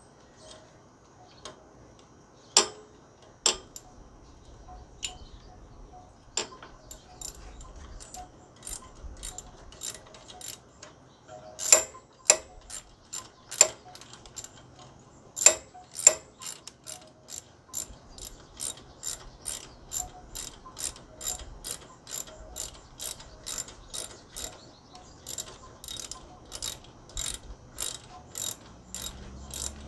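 Socket ratchet wrench clicking as it is worked back and forth to loosen a bolt on a mini bike. The clicks are scattered at first, with a few louder knocks near the middle, then settle into a steady run of about two clicks a second.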